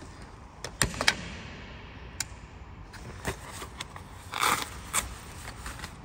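Scattered sharp clicks and taps of hard objects being handled, with a louder short jangly rattle about four and a half seconds in.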